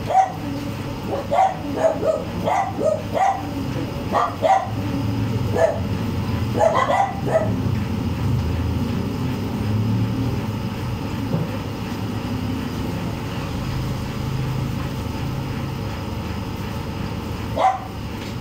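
A dog barking: a quick series of short barks over the first several seconds, then a single bark near the end, over a low steady rumble.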